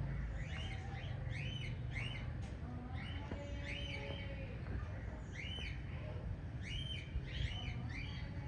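A small group of pet budgerigars chirping: short, arched chirps in little clusters every second or two, over a steady low background rumble.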